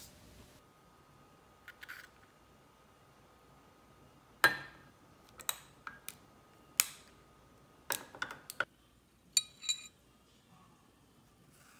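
A scattered run of sharp clicks and clinks over quiet room tone: ice balls from a silicone sphere tray knocking against a glass coffee mug, and tableware being handled. The last few clinks, near the end, carry a brief bright ring.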